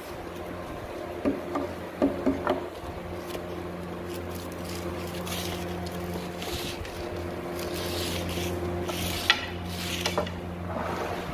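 Wooden cabinet-door frame pieces being handled and fitted together at the corner joints: a few light knocks of wood on wood about a second or two in, then rubbing and scraping of the parts. A steady machine hum runs underneath.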